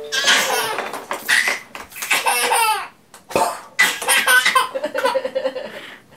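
A baby laughing hard in about four bursts of a second or so each.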